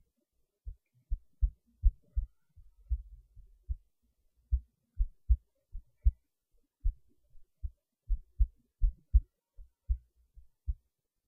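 A heartbeat: short low thumps, mostly in lub-dub pairs, repeating steadily, with a brief gap about four seconds in.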